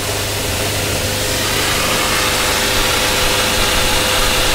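Water hissing out of perforated mist hoses and spattering down onto a wet concrete floor, under a steady machine hum, most likely the pump feeding the hoses; the hiss grows slightly louder.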